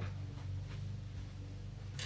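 Steady low hum with a few faint clicks and rustles.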